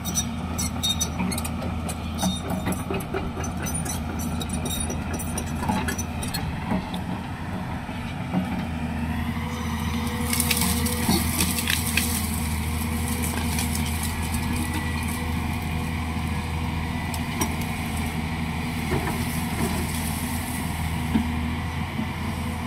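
Diesel engine of a Hyundai 215 crawler excavator running steadily as its bucket pushes through brush and small trees, with branches cracking and snapping. There is a louder crashing of brush about ten seconds in.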